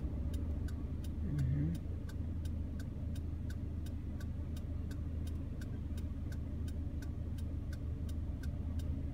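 A car's turn-signal indicator ticking steadily and evenly, over the low hum of the idling engine inside the stationary car's cabin.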